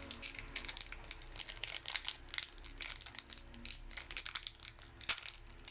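Pokémon TCG booster pack's foil wrapper crinkling and tearing as it is opened by hand, with irregular crackles throughout.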